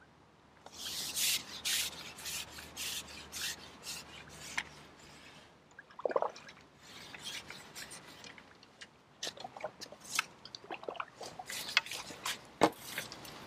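Rubbing and scraping of pole-fishing tackle being handled close to the microphone. It comes as a run of short, irregular rasps, starting about a second in.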